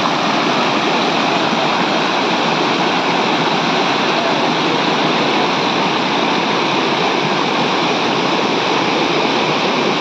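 Water rushing steadily over rock ledges in a small cascade, a constant loud splashing rush with no breaks.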